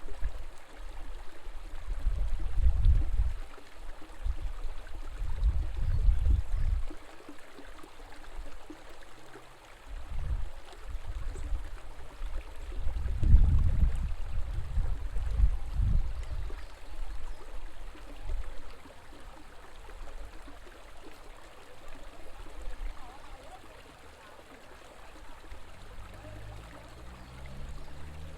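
River water flowing in a steady rush, with deep irregular rumbles that swell and fade every few seconds.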